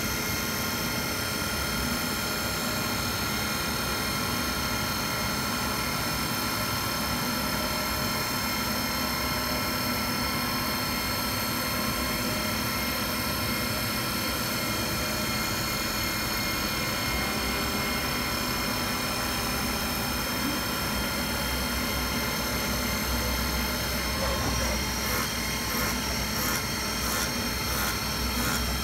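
CNC milling machine running: a steady mechanical whine made of several fixed tones over a noisy hiss. An even pulsing joins near the end.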